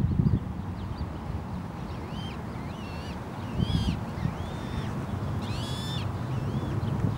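Canada goose goslings peeping: a run of short, high, arching calls, several in a row from about two seconds in.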